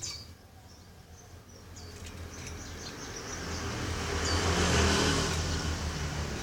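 A motor vehicle passing by, its noise building to a peak about five seconds in and then easing off, with a few faint, short high chirps from a white-eye (pleci).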